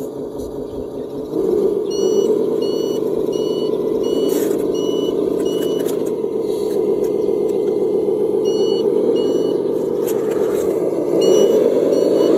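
A radio-controlled construction vehicle running steadily, with its reversing beeper sounding about twice a second in two spells.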